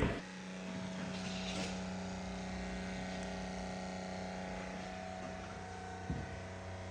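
Engine idling steadily, heard faintly as an even low hum, with a short knock about six seconds in.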